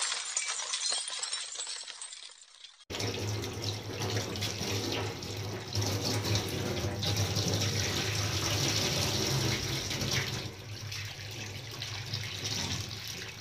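Kitchen tap running water into a steel bowl of raw mutton pieces in the sink as the meat is washed by hand. It starts abruptly about three seconds in, after a sound effect fades out.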